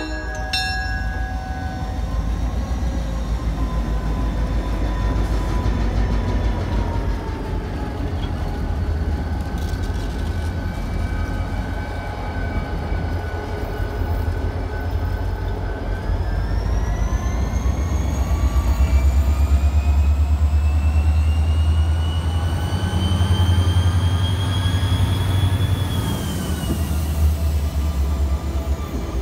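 Wheeling & Lake Erie diesel locomotives running, with a deep, steady engine rumble. A whine rises slowly in pitch over the second half and drops near the end as the rumble swells. A horn blast cuts off just as the sound begins.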